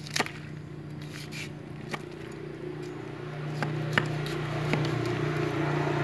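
A cleaver chops the fins off a large 8.6 kg black carp, giving irregular sharp clicks and cracks as the blade cuts through the fin rays. A steady low hum runs underneath and grows louder about three seconds in.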